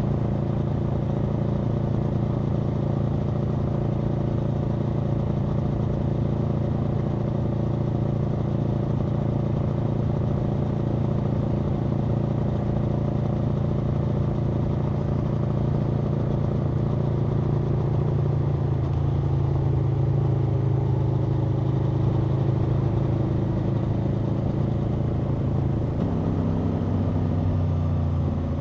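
Aprilia Tuono V4's V4 engine running steadily under way, heard from the rider's position. Its pitch holds mostly even, eases about two-thirds of the way in, and steps suddenly near the end.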